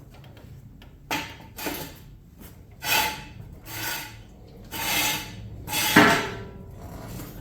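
Hard parts being handled and rubbed against each other: a series of about six short scraping rubs, the loudest near the end.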